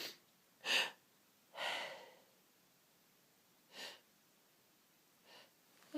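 A person sniffling and breathing in short noisy breaths through the nose, a second or two apart, the one about two seconds in longer.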